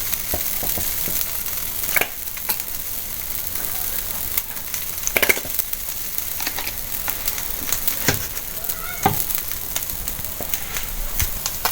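A filled crepe sizzling steadily in a hot frying pan as it toasts, with a few short clicks or taps.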